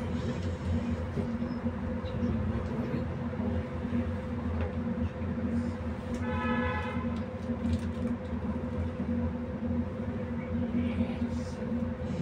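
Steady electrical hum inside a standing tram, with a brief pitched tone about six and a half seconds in.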